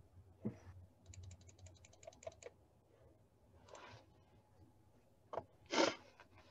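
Typing on a computer keyboard picked up by a video-call microphone: a quick run of key clicks, then a few scattered clicks. Near the end comes a short, louder noisy burst.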